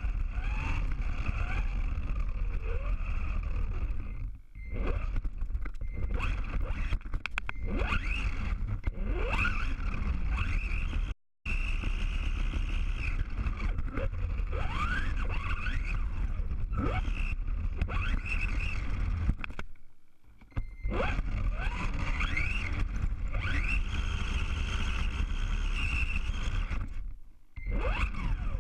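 Radio-controlled car running with an on-board camera: its motor rises in pitch again and again as it accelerates, over steady tyre and road rumble. It goes quiet briefly a few times where the throttle is let off, and cuts out abruptly near the middle.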